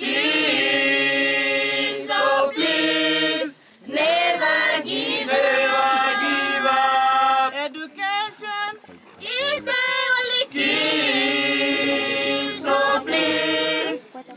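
A group of voices singing together without instruments, in long held phrases with short breaks between them.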